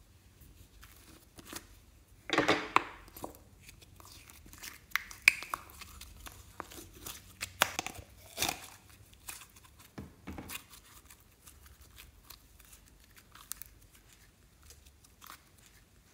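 Thick slime being squeezed out of a container and handled over a glass dish, giving a string of irregular sticky clicks, crackles and squelches. The loudest cluster comes about two seconds in, with quieter ones after.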